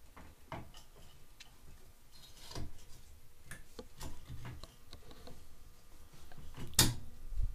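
Metal parts clicking and knocking as an ATV's drive shaft and swing arm are wiggled into place by hand, a string of irregular light ticks with one sharper knock near the end.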